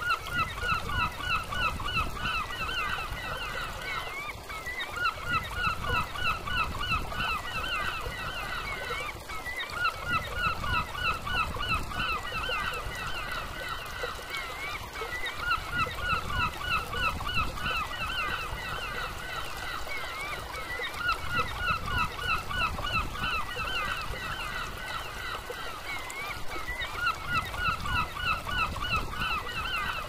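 Steady rush of a shallow river pouring over low concrete weir steps. Over it, a bird gives bouts of rapidly repeated harsh calls, each bout about three seconds long and recurring every five or six seconds; the calls are the loudest sound.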